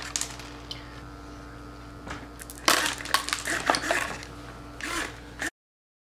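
A homemade candy dispenser's servo turns its cup and small hard-shelled candies rattle out into a hand, in a few short clusters of clicks. The sound cuts off abruptly near the end.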